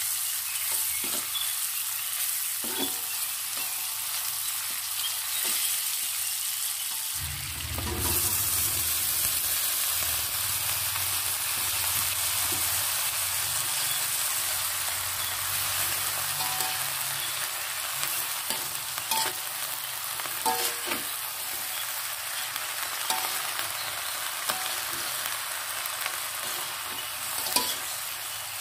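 Shallots, garlic and chilies sizzling in hot oil in a wok, stirred with a metal spatula that clicks and scrapes against the pan. About seven seconds in the sound changes as the chopped genjer (yellow velvetleaf) stalks go into the wok, and the steady sizzle goes on under the stirring.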